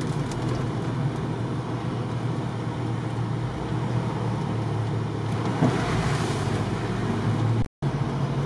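Off-road 4x4 driving at steady speed: engine drone with tyre and body noise, joined about six seconds in by a brief rush of hiss. The sound cuts out for a moment near the end.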